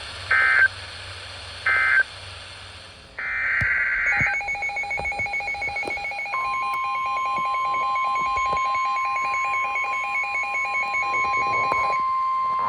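Emergency Alert System data tones: two short digital chirp bursts of end-of-message code, then about three seconds in a longer burst of header data for the next alert. A fast warbling electronic alert beep follows, joined about six seconds in by a steady single tone, the weather radio warning alarm tone; the warbling stops near the end while the steady tone holds.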